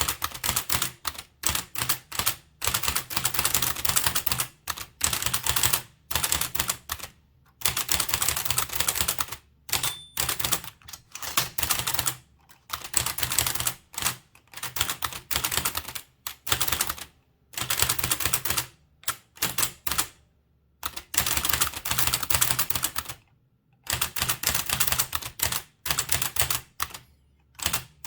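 Blickensderfer typewriter typed on steadily: dense runs of clacking keystrokes as the type cylinder swings and strikes for each character, about four to six a second, broken by brief pauses between words and lines.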